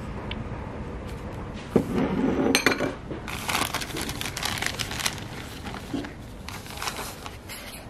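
A brief clatter about two seconds in, then a plastic bag of grated cheese crinkling repeatedly as it is handled and shaken out.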